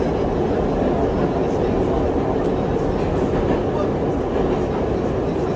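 Budd R32 subway car running along the track, heard from inside: a steady rumble of wheels on rail and running gear, with no change in loudness.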